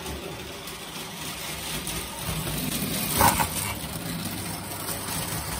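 Prewar Lionel O gauge toy train running on three-rail tinplate track. Its motor and wheels grow louder as it approaches, with a sharp clack about three seconds in.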